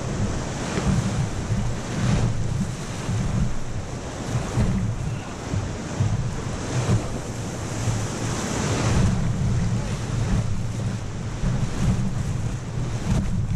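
Whitewater rapid rushing and splashing around an inflatable raft, with wind buffeting the camera microphone in a low, gusting rumble.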